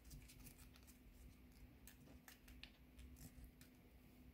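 Near silence, with a few faint, short rustles and ticks of folded paper being pressed and creased by fingertips, over a faint steady hum.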